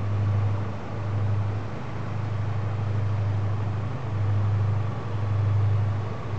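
Low, steady drone of a passing Rhine cargo barge's diesel engine, swelling and fading slightly every second or two, over a faint even hiss.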